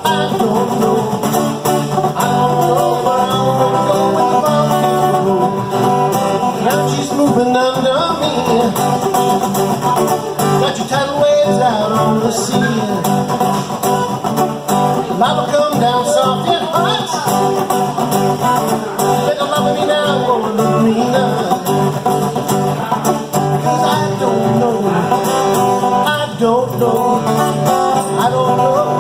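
Steel-string acoustic guitar strummed in a steady rhythm, with a man singing along.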